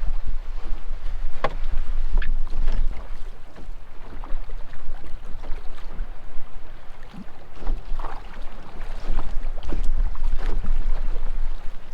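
Wind rumbling on the microphone aboard a canoe, with scattered knocks and taps of gear and water against the hull; the sharpest knock comes about a second and a half in.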